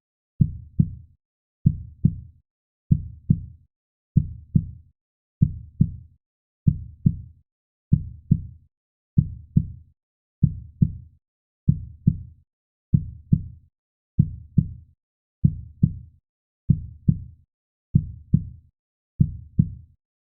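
Heartbeat sound effect of a normal human heart: steady, slow lub-dub double thuds, low and deep, each fading quickly, about one beat every second and a quarter.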